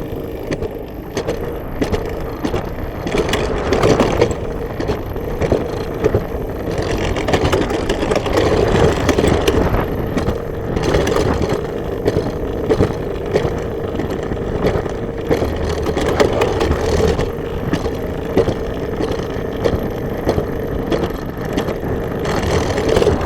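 Alpine coaster sled running down its steel rail track: a steady rolling hum from the wheels under wind and scattered rattles.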